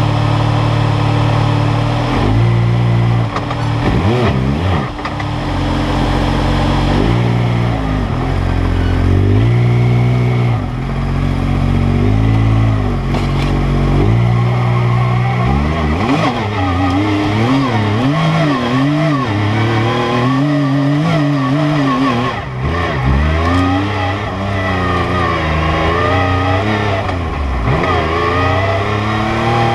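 2016 Yamaha YXZ1000R SE's three-cylinder engine revving up and down again and again under on-off throttle at low speed over rough ground. Near the end it pulls with a steadily rising pitch.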